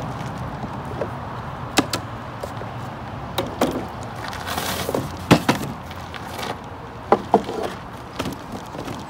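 Wooden beehive boxes and frames being handled: scattered knocks and clunks of wood on wood, with a brief scraping slide about halfway through.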